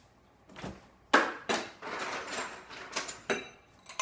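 Kitchen clatter of glassware: a sharp knock about a second in, then a run of clinks and rattles.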